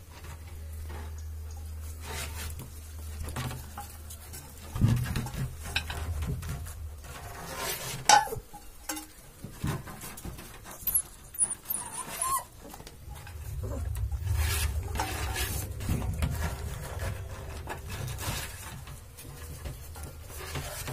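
Rottweiler puppies moving about a small metal pan, with scattered clinks and knocks of metal dishes and a few short whimpers, over a low steady rumble of handling noise.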